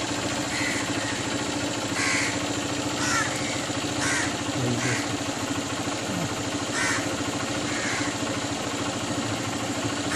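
A crow cawing repeatedly, about eight short caws spaced irregularly, over a steady low hum.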